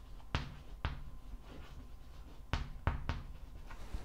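Chalk tapping against a blackboard as words are written: sharp single clicks, two in the first second and a quick run of three about two and a half seconds in.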